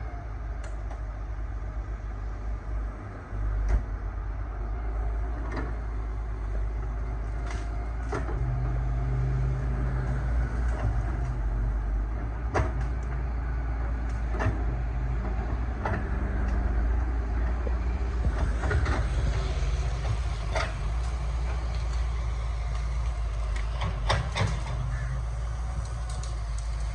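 Excavator's diesel engine running steadily under load, with irregular sharp knocks and clanks every second or two.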